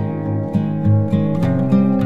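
Background music of an acoustic guitar playing plucked notes at an even pace.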